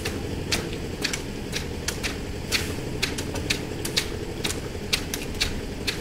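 Sharp metal scrapes and knocks, about two a second, from hand tools spreading wet concrete over a rebar roof slab, over a steady engine drone.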